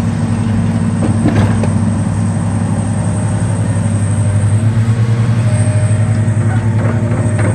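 John Deere 470G excavator's diesel engine running steadily under load. A few knocks about a second in as the bucket works broken concrete.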